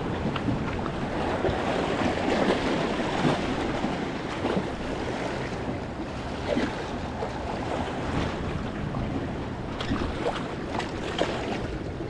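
Waves washing and splashing against jetty rocks, a steady wash of surf with small splashes here and there, and wind rumbling on the microphone.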